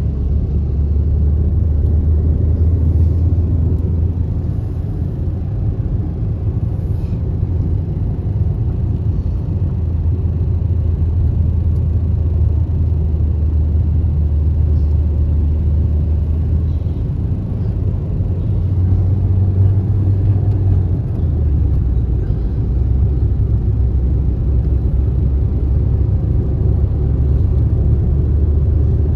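Car driving in traffic, heard from inside the cabin: a steady low rumble of engine and tyres on the road.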